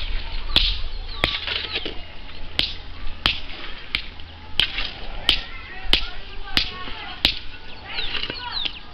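Sharp, evenly spaced clicks, about three every two seconds, over a steady low rumble, with short falling chirps like small birds now and then.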